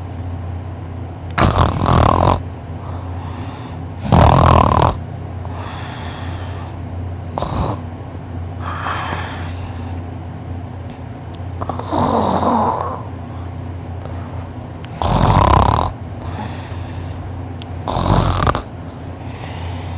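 A man snoring heavily in his sleep: loud snores roughly every three seconds, with fainter breaths between them, over a steady low hum.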